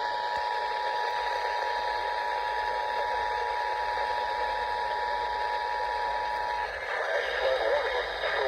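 Emergency Alert System two-tone attention signal, steady over radio hiss; it cuts off about six and a half seconds in and a voice announcement starts over the same hiss.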